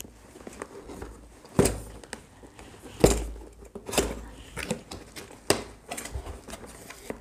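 A box cutter slitting the sealed end of a cardboard box and the top flaps being pulled open: cardboard scraping and handling, with a few sharp clicks and taps.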